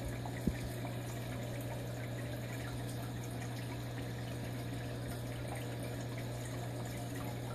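Steady water trickle with a constant low hum from a running aquarium's equipment, and one small tick about half a second in.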